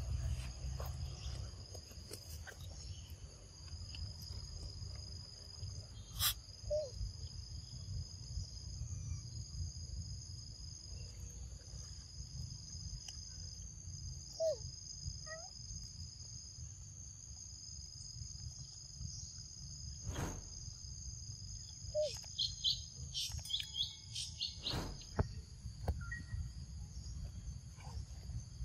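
Steady high-pitched insect chorus of several overlapping tones, over a low rumble. A few sharp clicks break in, and a short run of high chirps comes near the end.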